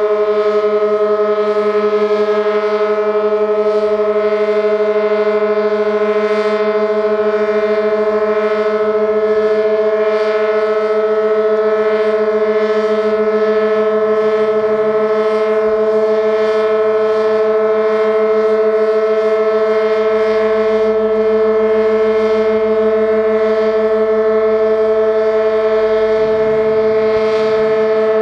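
Sentry 16V1T-B outdoor warning siren sounding one steady tone that holds its pitch throughout, with strong overtones above its low hum. The siren is ailing, which the uploader puts down to dying batteries.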